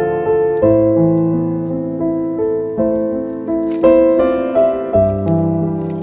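Background piano music: a gentle melody of struck notes that ring and fade, over low bass notes that change every few seconds.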